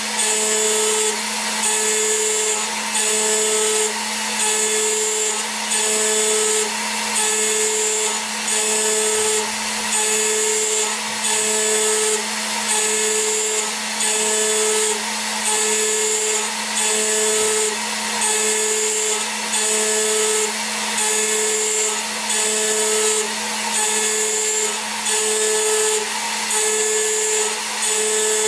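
CNC mill spindle turning a 3 mm cutter at about 13,000 RPM, a steady whine, while the tool mills soft metal in a roughing pass. The cutting noise comes and goes about once a second as the table sweeps back and forth at a fast feed.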